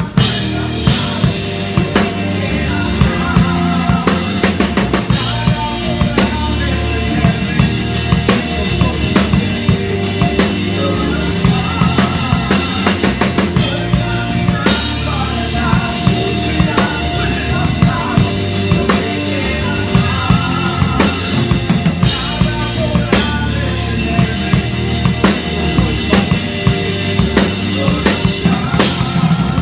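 Live band playing a song, with a drum kit keeping a steady beat as the most prominent part. Under it are electric bass, electric guitar and keyboard, and a male and a female singer on microphones.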